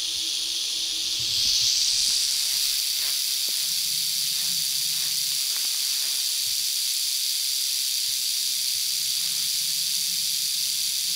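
Timber rattlesnake rattling its tail in a continuous high-pitched buzz, growing louder about a second in and then holding steady: a defensive warning.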